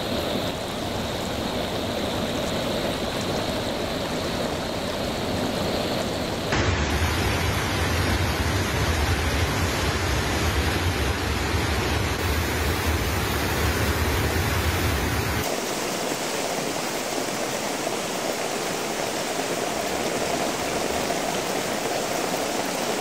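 Muddy floodwater rushing and pouring, a steady noise of fast-moving water. The sound changes abruptly twice, about six and a half and fifteen and a half seconds in, and the middle stretch carries a heavy low rumble.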